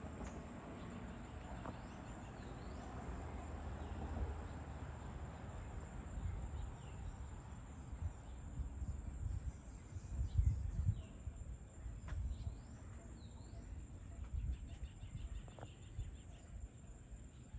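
Outdoor evening ambience: birds chirping here and there over a low rumble that swells about two-thirds of the way in, with a steady high hum. There is a short, rapid trill near the end.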